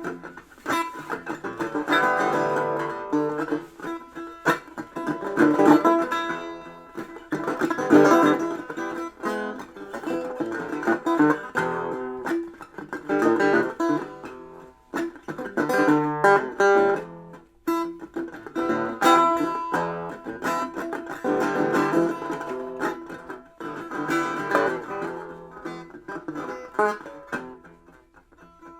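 Instrumental music on a plucked string instrument: single notes and chords picked in short phrases, with brief pauses between phrases.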